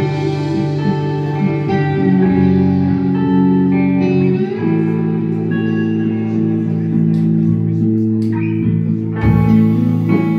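A live instrumental rock band playing: electric guitars holding ringing chords over bass and drums. Cymbal strokes come in during the second half, and a loud crash about nine seconds in.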